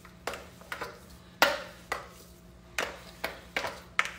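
Hands working raw ground burger meat into balls in a bowl: an irregular run of about eight short, sharp slaps and knocks, the loudest about a second and a half in.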